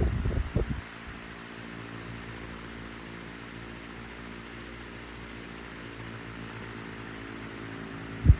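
Electric motor of a 1967 Hunter CG16 16-inch commercial table fan running with a steady hum and a light hiss of moving air. The fan's air blast rushes on the microphone for about the first second, then stops, and it hits again suddenly right at the end.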